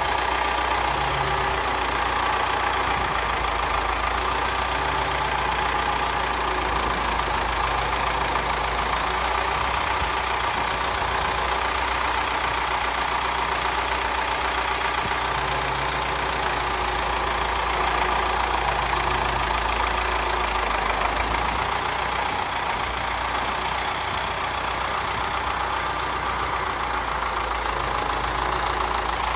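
Ford farm tractor engine idling steadily, with a low, even running note.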